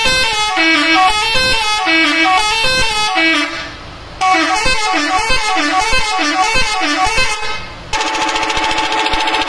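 Bus telolet horn, a multi-tone horn, playing a quick melodic tune twice with a short break between, then sounding a steady held chord near the end.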